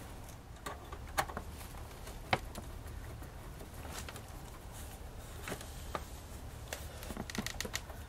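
Screwdriver driving screws through the steel case into a replacement computer power supply: irregular short metal clicks and taps, the sharpest about two and a half seconds in and a quick cluster near the end, over a low steady hum.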